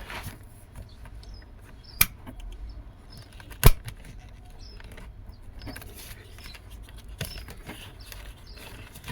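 Small hand-tool and plastic handling sounds: a pick being worked at a wiring connector to release it. There are two sharp clicks about two and three and a half seconds in, amid faint light ticking.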